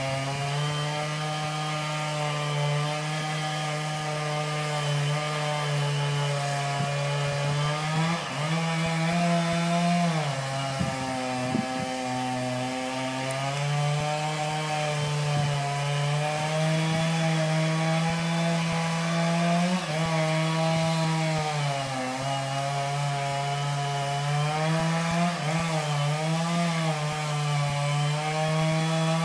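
Chainsaw running at high revs while cutting grand fir, its pitch dipping and recovering several times as the cut loads the engine.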